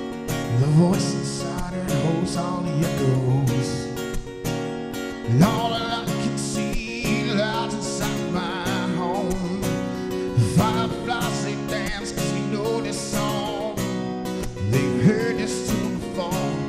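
A man singing a country-style song while strumming an acoustic guitar, with some held notes wavering in the middle.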